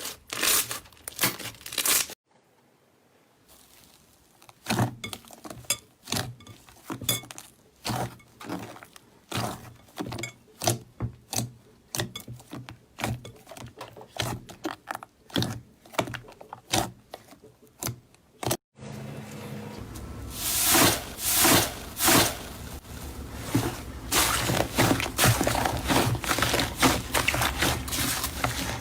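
Slime being squeezed, poked and stretched by hand, giving a run of crackling, popping clicks. The sound cuts abruptly between clips about two seconds in and again a little before two-thirds of the way through, and the crackling grows denser near the end.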